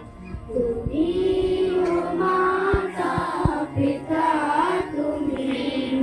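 A group of children singing together in unison, a slow melody with long held notes, with a few low thumps about three seconds in.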